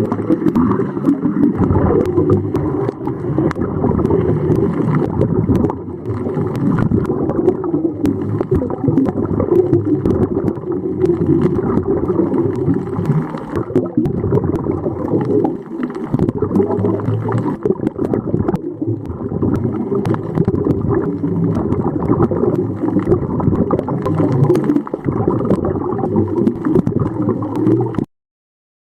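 Dull, muffled sloshing and gurgling of water and bubbles, steady throughout, with faint scattered clicks; it cuts off abruptly near the end.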